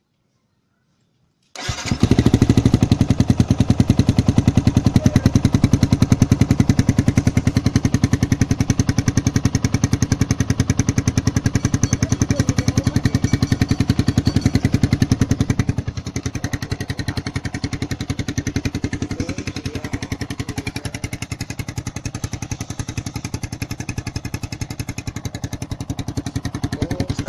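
Yamaha R15's single-cylinder four-stroke engine starting abruptly and idling through a Proliner TR1 aftermarket exhaust with its DB killer fitted, a loud even popping beat. It drops to a lower, quieter idle about halfway through.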